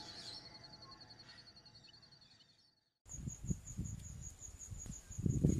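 The tail of an intro jingle fades out to silence, then about three seconds in an outdoor nature ambience begins: an insect chirping in a steady high pulse, several beats a second, with irregular low rumbles underneath.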